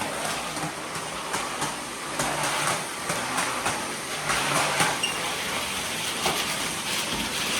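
Vacuum cleaner running steadily as it is worked across the floor, with a few light knocks here and there.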